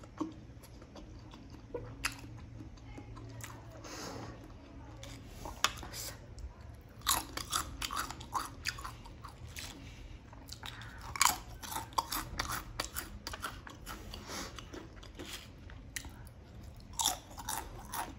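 Eating sounds: chewing, then bites into Pringles potato crisps that give runs of sharp, crackling crunches, the loudest and densest in the second half.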